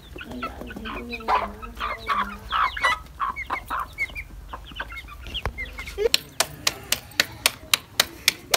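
A flock of young chickens clucking and cheeping as they feed. About six seconds in, this gives way to quick, even slaps of roti dough being patted flat between the palms, about four a second.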